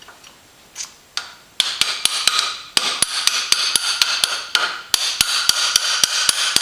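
Hammer driving a long metal rod against the Kawasaki Ninja 300's front axle to drive it out of the wheel hub: two light taps, then a fast run of strikes, about four or five a second, with the steel ringing between blows.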